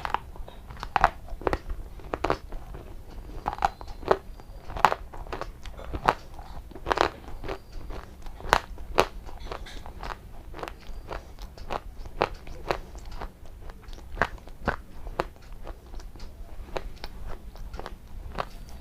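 Close-miked crunchy eating: a run of sharp crunches from bites and chewing, roughly one or two a second and uneven in loudness, over a low steady hum.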